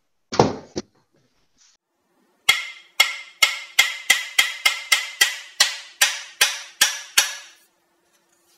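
A knock about half a second in, then a run of about fifteen sharp, ringing wooden percussion strikes that come faster and then slow again.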